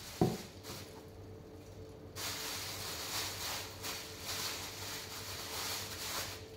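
A ceramic mug set down on a wooden table with one sharp knock; then hands working soft dough on a floured countertop, pulling off pieces and pressing them, an uneven rustling, patting noise.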